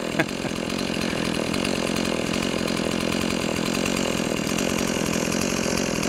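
Two-stroke chainsaw engine running steadily without revving up. There is a brief sharp sound right at the start.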